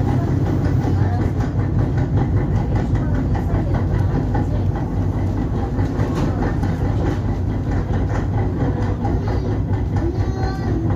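Seoul Subway Line 1 electric train running: a steady low hum with rail clatter over it.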